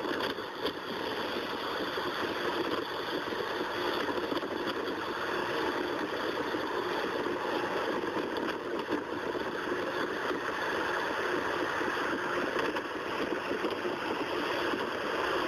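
Steady rushing jet noise from an Airbus A380's four turbofan engines on final approach, with a faint steady hum underneath.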